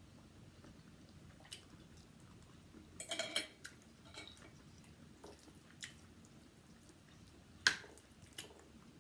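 Eating utensils clicking against a plate in a few scattered taps, the sharpest near the end, with quiet chewing between them.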